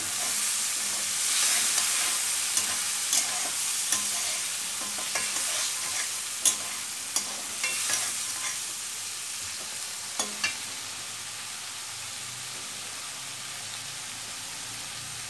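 Prawns and spice paste sizzling in a wok as a steel spatula stirs them, with sharp scrapes and clicks of the spatula against the pan. A little water has just gone in to cook down the masala. The sizzle slowly quietens, and the clicks stop after about ten seconds.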